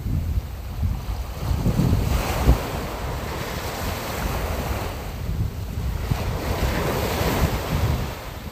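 Wind buffeting the microphone over a rushing wash of sea surf, which swells twice and eases back.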